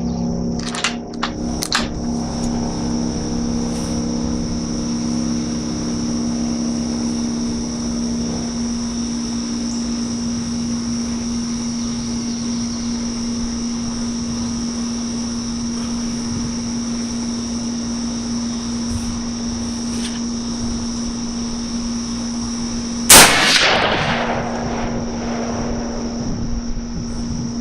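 A single Mosin-Nagant 91/30 rifle shot, 7.62x54R, about 23 seconds in: sharp and very loud, trailing off over about a second. It sounds over a steady high-pitched buzz and a low hum, with a few light clicks in the first two seconds.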